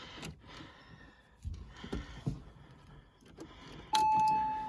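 Faint clicks and handling noises, then about four seconds in the Porsche Boxster 986's dashboard warning chime gives one steady electronic ding that fades away.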